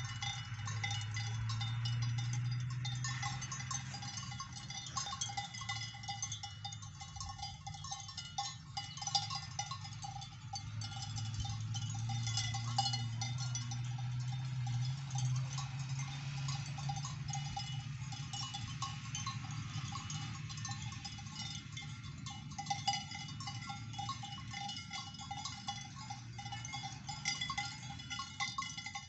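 Many cowbells on grazing Maasai cattle clanking continuously and unevenly, several bells of different pitches overlapping. A low hum runs underneath, swelling at times.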